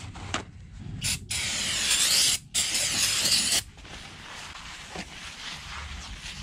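Three hissing bursts of pressurised spray: a short one about a second in, then two longer ones of about a second each.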